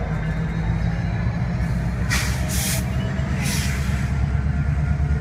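Freight train rolling slowly past with a steady low rumble, and air hissing from its brakes in two bursts, about two seconds in and again about three and a half seconds in.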